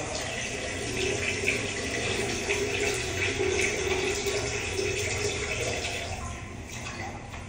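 Toilet flushing: a steady rush of water that swells about a second in and eases off near the end.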